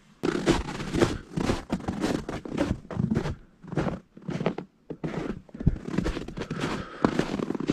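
Footsteps crunching on a thin cover of icy snow, an irregular string of steps with scrapes and knocks.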